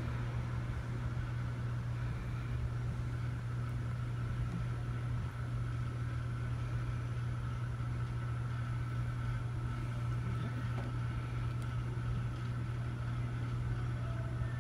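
Steady low hum, unchanging throughout, with a faint steady higher tone above it.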